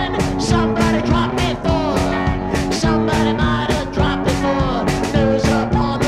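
Studio recording of a rock band playing: a steady drum beat under sustained chords and gliding lead lines.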